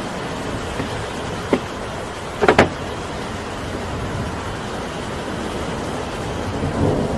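Steady rain and wind, with two sharp cracks about a second and a half and two and a half seconds in, and a low rumble swelling near the end.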